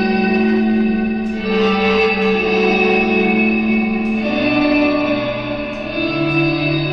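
Electric guitar played through homemade effects pedals (a boost, a reverse reverb, a second reverb and a delay), giving long, held ambient notes that swell in and change pitch a few times, reminiscent of violins or cellos.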